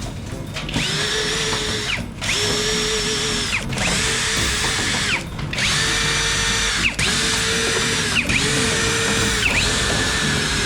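Power drill/driver running in about seven short runs, each whining up to speed and winding down again.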